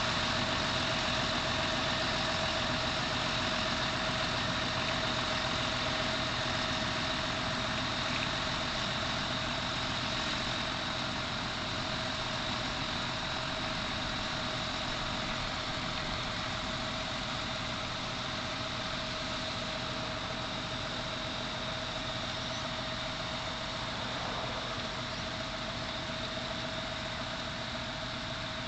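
Tractor engine running steadily under light load with a constant high whine, gradually getting quieter as it pulls an umbilical slurry dribble bar away.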